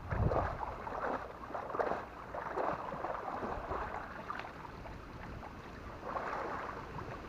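Water splashing and sloshing in irregular bursts about every half second, from a fishing net being worked through shallow ditch water.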